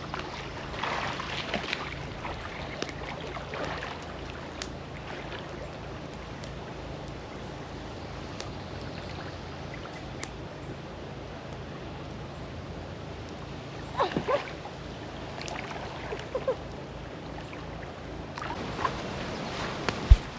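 Lake water sloshing and splashing around people wading and swimming, with a few brief louder splashes and a sharp knock just before the end.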